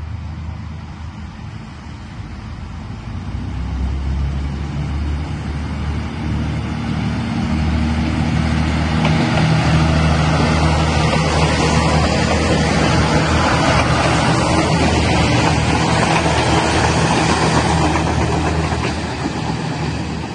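KiHa 58-series diesel railcars running as the train draws near and passes close by. The low engine drone grows louder over the first several seconds, with a steady rushing noise from wheels on the rails once the cars are alongside.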